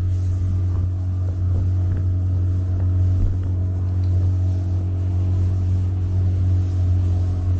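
Boat engine running at a steady speed while under way: a loud, even low hum that holds the same pitch throughout.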